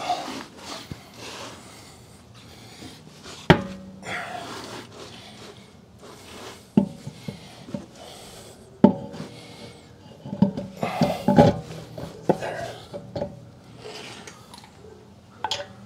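A wheel and tire being handled and fitted onto the hub studs: rubbing and scraping, with a few sharp knocks spread through and a quicker run of knocks past the middle.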